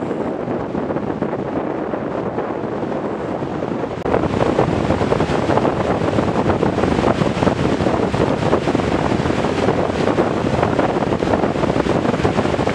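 Strong wind buffeting the microphone over water rushing and spraying past the hull of a small multihull sailboat moving fast. The noise grows louder and rougher about four seconds in.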